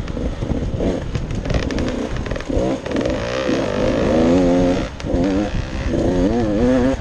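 A 2023 GasGas 85cc two-stroke dirt bike engine heard from on the bike, revving up and down with the throttle while riding a rough dirt trail. It dips briefly about five seconds in, then picks up again.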